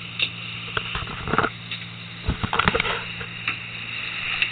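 Fishing boat's engine running steadily, with a scatter of sharp knocks and taps over it, clustered about a second in and again around two and a half seconds in.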